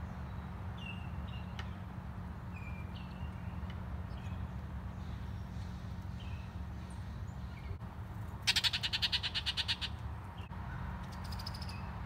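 Wild birds calling around backyard feeders: scattered short high chirps, then about two-thirds of the way in a loud, rapid rattling series of notes lasting just over a second, and a fainter one near the end. A steady low rumble runs underneath.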